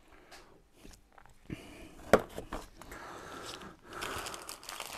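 Rustling and crinkling of grocery packaging being handled and rummaged through, with a few sharp taps, the loudest about two seconds in.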